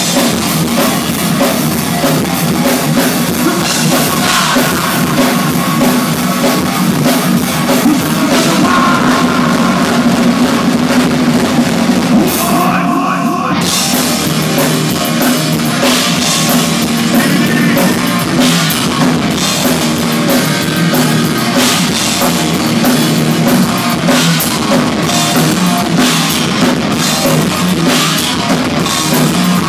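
Thrash metal band playing live: distorted electric guitars, bass and fast drums in a loud, dense wall of sound. There is a short break in the cymbals and guitars about halfway through.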